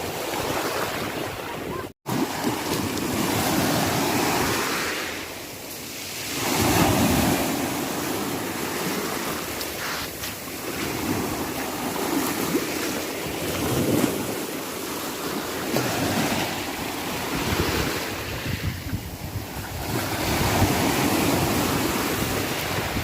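Sea waves breaking and washing in, the surf swelling and easing every few seconds, with wind buffeting the microphone. The sound drops out abruptly for an instant about two seconds in.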